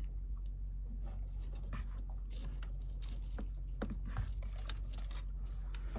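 Light clicks and scrapes of hands handling the wiring and a newly installed stereo that won't power on, over a steady low hum.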